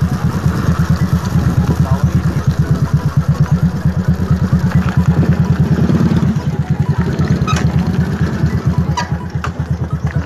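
Motorcycle running through a KKD cut-open (split) aftermarket exhaust at low, steady revs: a loud, deep, evenly pulsing exhaust beat, with a few sharp ticks in the second half.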